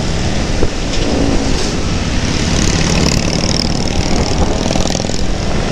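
Motorcycle engines running on the move: the thundering V-twin exhaust of Harley-Davidson touring bikes riding just ahead, heard over the rider's own motorcycle.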